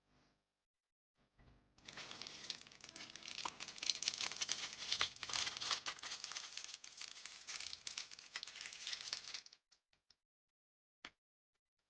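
Packaging being unwrapped and crinkled, a dense crackling rustle lasting about eight seconds, followed near the end by a single sharp click.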